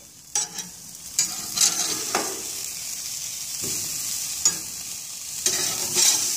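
Beef burger patties sizzling on a gas grill while a metal spatula scrapes and clacks against the grates as the patties are flipped, several sharp knocks over a steady hiss.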